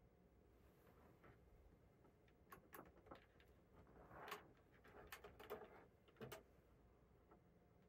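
Faint clicks and light rustling of test-lead wires and alligator clips being handled on a bench, a cluster of scattered ticks over about four seconds in the middle.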